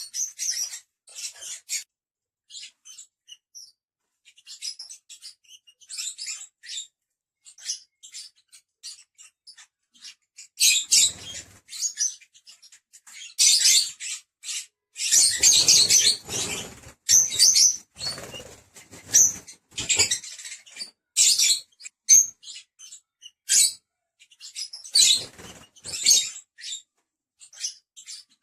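Lovebirds chirping and chattering in short, high-pitched chirps that come and go, busiest and loudest in the middle stretch, where noisier bursts that reach lower mix in.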